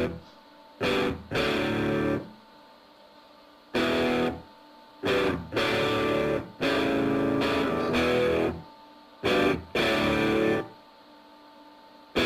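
Music: distorted electric guitar chords played in short stop-start blocks, with brief pauses between them.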